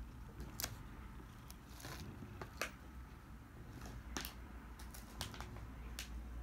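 Sporadic light ticks and taps, about seven at irregular intervals, over a low steady hum.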